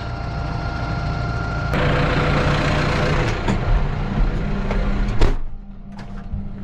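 Tractor engine running while pulling a potato ridge former through dry soil. The sound changes abruptly about two seconds in to a louder hiss, and after a sharp knock about five seconds in it turns quieter and steadier.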